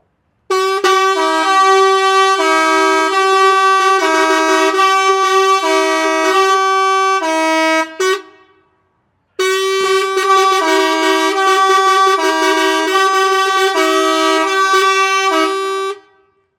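Truck air horn sounded in two long blasts of about seven seconds each, separated by a short pause. Each blast holds a steady chord while a lower note cuts in and out roughly every second and a half, giving an alternating two-tone pattern.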